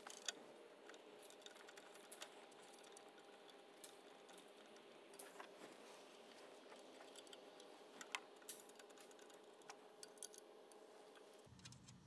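Near silence: a faint steady room hum with scattered light clicks, as button screws are threaded by hand into a caster wheel's metal bracket.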